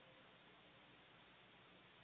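Near silence: a steady faint hiss of background noise.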